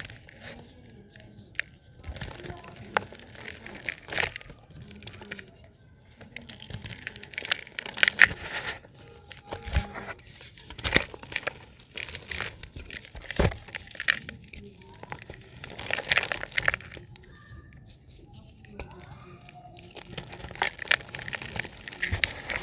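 Chunks of dried dirt being crumbled and crushed by hand: irregular gritty crunches and crackles, with louder bursts of crumbling every second or two.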